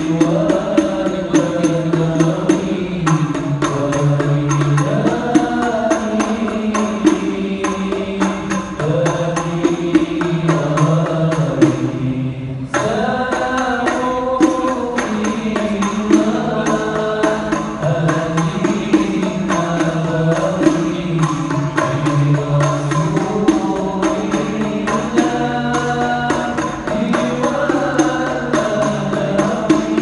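A group of men singing an Islamic devotional chant together through microphones, with frame drums beating a steady rhythm underneath. The singing breaks off briefly a little before halfway, then resumes.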